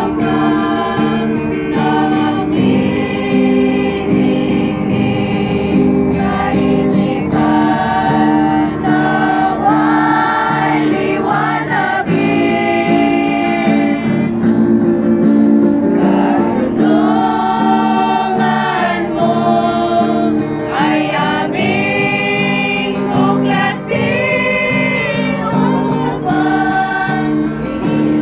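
Women's choir singing an Ilocano gospel hymn together, over a steady instrumental backing.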